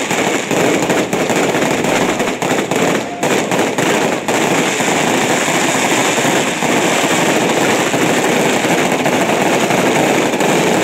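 Fireworks going off in a dense, continuous crackle of rapid pops and bangs.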